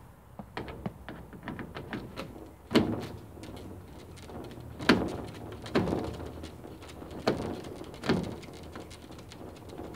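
Irregular clicks and taps, with about five louder knocks, from hands and tools working at a greenhouse door frame.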